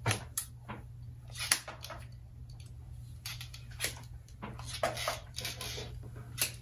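Irregular soft rustles and brief clicks of hair being worked through a flat iron and round brush, over a steady low hum.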